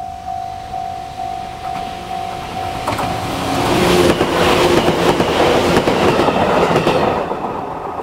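Level-crossing warning bell ringing in steady electronic tones, about two a second, with a Japanese JR Central-type sound. About three seconds in it is drowned out by a Chichibu Railway 6000 series electric express train passing over the crossing, with loud wheel and rail noise for about four seconds. The bell comes back near the end.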